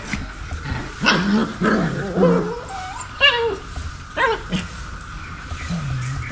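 Puppies whimpering and yipping in about five short calls that slide up and down in pitch, over a steady high-pitched hum. A low drone starts near the end.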